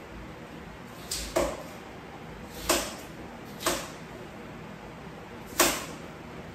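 Sweet potato vine stems being snapped by hand: four sharp cracks at irregular intervals, the first with a softer one just before it.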